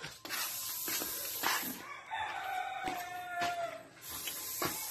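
A rooster crowing once, about two seconds in: one long call that falls slightly in pitch near its end, over a steady hiss.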